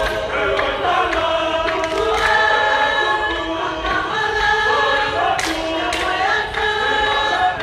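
Tongan lakalaka sung by a large group of voices in harmony, with long held notes in several parts.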